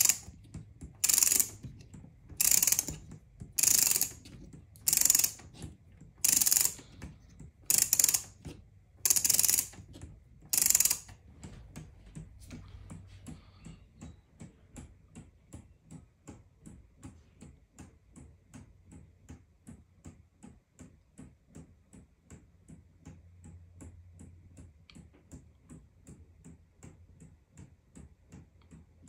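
3D-printed plastic gear-train pendulum wall clock being wound by hand: about nine loud bursts of ratchet clicking, roughly one every second and a half, as the weight's reel is turned. After about 11 seconds the escapement takes over with a steady, faint ticking as the clock runs.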